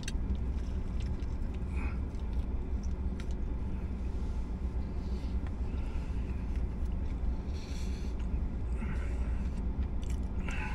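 A man chewing a mouthful of crispy fried chicken sandwich, with faint soft mouth clicks, over a steady low rumble inside a parked car.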